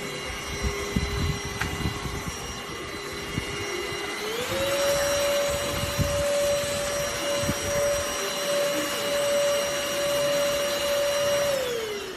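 ENOLUX K7 PRO cordless vacuum cleaner's motor running with a steady whine. About four seconds in it steps up to a higher, louder speed, then winds back down near the end. There are scattered low knocks from handling.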